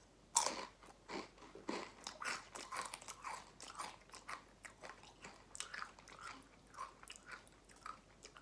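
A person biting into a Takis rolled corn tortilla chip, with one loud crunch about half a second in, then chewing it with a run of smaller crunches about twice a second.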